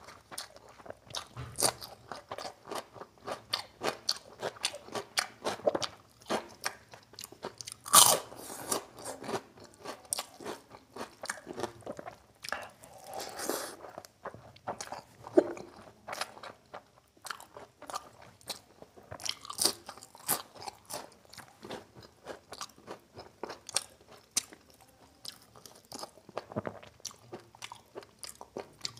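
Close-miked eating by hand of mutton curry with rice: steady chewing with many short wet mouth clicks and smacks, and a few louder crunchy bites, the loudest about eight seconds in.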